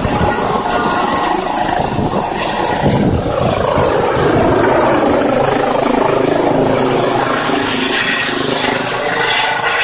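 Eurocopter EC135 twin-turbine helicopter climbing away after take-off: turbine whine over the fast beat of the main rotor. The heavy low rotor thumping thins out after about four seconds as the helicopter gains height and distance.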